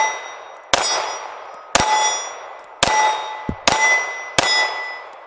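Remington RM380 .380 ACP pocket pistol fired about five times, roughly a second apart, each shot followed by the fading ring of a steel plate target being hit.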